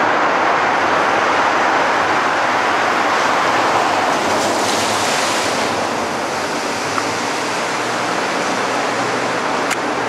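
A car driving through a narrow road tunnel: steady road and engine noise echoing off the tunnel walls, easing a little after about six seconds.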